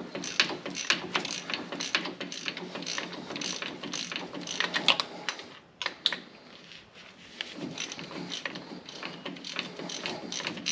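Hand ratchet wrench clicking in quick strokes as bolts are run in, with a short lull a little past halfway.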